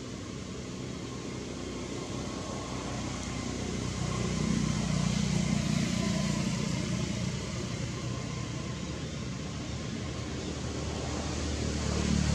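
Motor vehicle passing in the background: a low engine hum swells about four seconds in, eases off, and rises again near the end, over a steady hiss.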